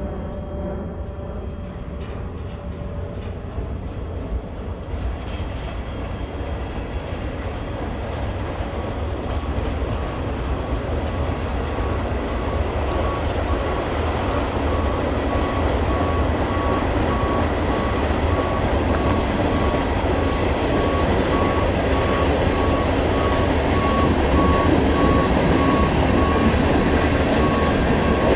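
Union Pacific tie train rolling by on the rails, its rumble and wheel noise growing steadily louder. A steady thin high wheel squeal joins about a third of the way in.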